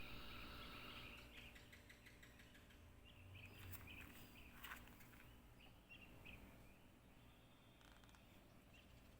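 Near silence, with faint, scattered short high chirps over a low background hum.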